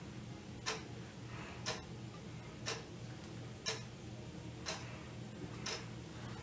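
A clock ticking faintly and evenly, one tick a second, over a low steady hum.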